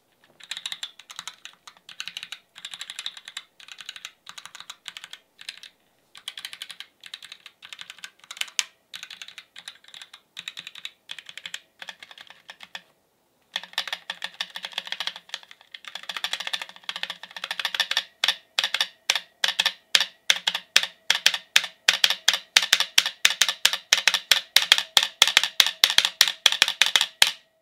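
Roccat Vulcan TKL Pro keyboard with Titan Switch Optical linear switches: irregular typing for about thirteen seconds, then, after a short pause, the spacebar pressed over and over in a fast, steady rhythm that grows louder.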